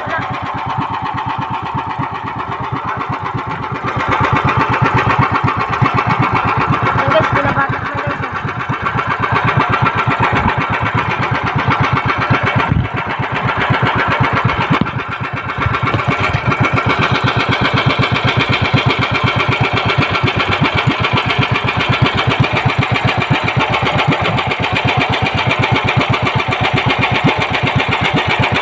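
Small engine of an outrigger fishing boat running steadily with a rapid, even beat, getting louder about sixteen seconds in.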